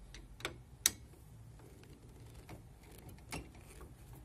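A screwdriver tip clicking and tapping against the metal print head of an Epson LQ-2190 dot matrix printer, a few sharp ticks. The loudest comes a little under a second in, with another just past three seconds.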